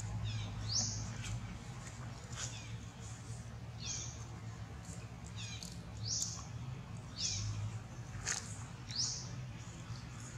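A bird giving short, high chirps that sweep downward in pitch, repeated every one to two seconds over a steady low hum.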